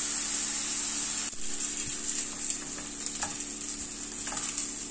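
Deboned chicken thigh pieces sizzling in a hot frying pan, an even hiss with a few faint pops.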